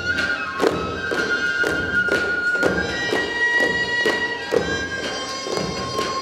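Korean traditional dance music: long held melody notes over steady drum strikes, about two a second.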